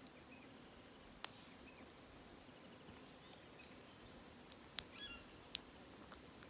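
A few sharp, isolated clicks from a lock being picked by hand with a pick and tension tool: one about a second in and two around five seconds in. Faint bird chirps sound in the background.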